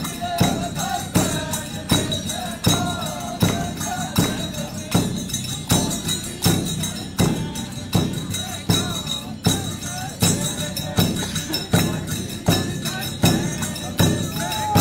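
Indian folk music: a steady beat of about two strokes a second with tambourine-like jingles, and voices singing over it.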